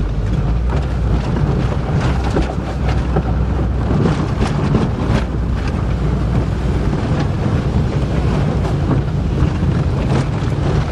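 Turbocharged Volvo car heard from inside the cabin while driving, its engine running steadily low, with wind noise on the microphone and frequent short knocks and rattles from the car on the rough track.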